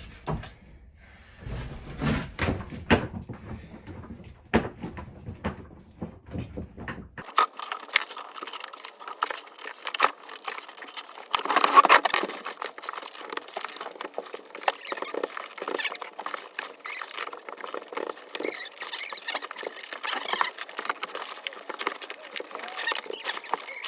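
Shovels scraping and dirt being tossed: irregular gritty scrapes and patter, with a few heavier thuds early on and a louder scrape about twelve seconds in.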